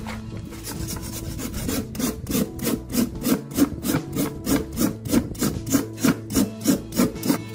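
A farrier's hoof rasp filing a horse's hoof in quick, rhythmic back-and-forth strokes, about three a second, getting stronger from about two seconds in. The hoof is being rasped to prepare it before a broken-away section of the wall is rebuilt.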